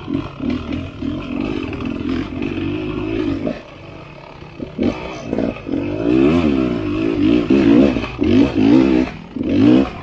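Dirt bike engine revving up and falling back in repeated short throttle bursts, its pitch rising and dropping as it climbs a rough trail. It eases off for about a second a little after three seconds in, then picks up again.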